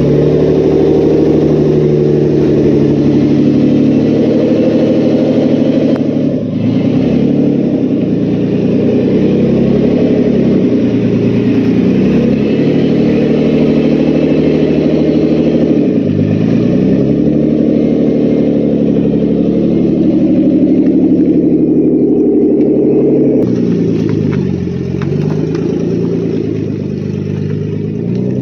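Nissan 300ZX's twin-turbo VG30DETT V6 running and being revved, the revs dropping and climbing again several times. The engine has a rod knock.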